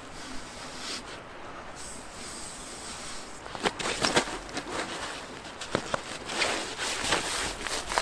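Inflatable sleeping pads being handled and slid across the tent floor and the leaf-covered ground: nylon rubbing and rustling with dry leaves, broken by a few sharp crackles about halfway through.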